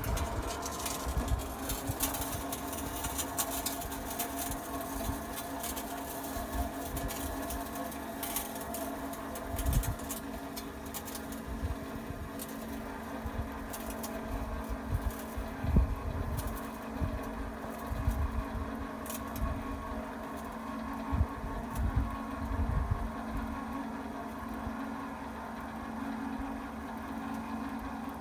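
The motor of a KM-25 tobacco baling press runs with a steady hum while the press's pressing plate moves slowly.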